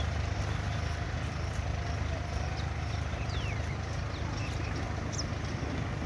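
Tractor's diesel engine running steadily while ploughing, with birds giving a few short falling whistles and chirps over it, one near the start and one about three seconds in.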